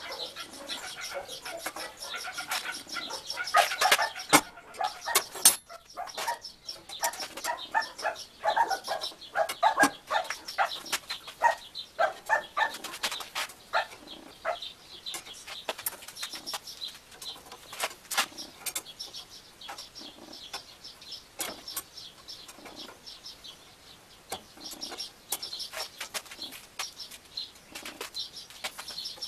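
Thin steel rods clinking and rattling against each other and the frame as they are handled in a hand-cranked rope twister, in many separate sharp clicks that are loudest a few seconds in. Birds chirp and call in the background.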